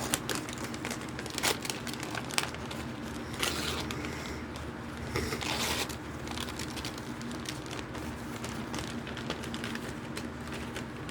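Crinkling and rustling of packaging being handled and searched through, with scattered small clicks and taps.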